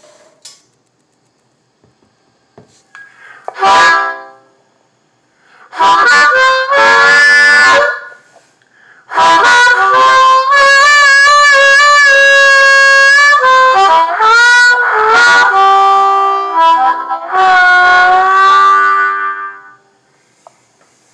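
Harmonica played through a Red Howler microphone into a Pignose portable amplifier, in four separate phrases: a short blast about 4 s in, then longer held chords, the longest from about 9 to 14 s, and a last phrase with bent notes that ends near the close.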